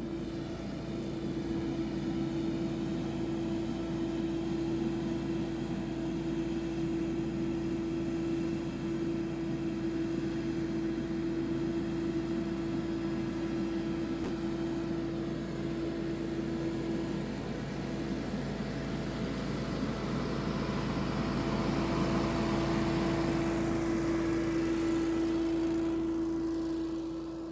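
Billy Goat P2000 stand-on leaf blower running at full power: an engine drone under a steady fan whine and a rush of air, getting louder in the last several seconds.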